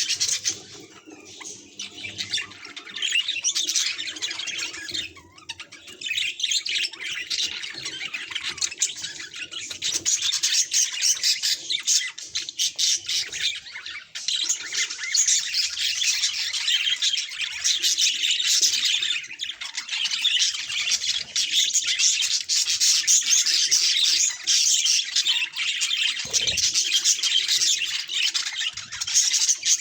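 Budgerigars chattering and warbling: a dense, continuous stream of rapid high chirps and squawks, with brief lulls about five and fourteen seconds in.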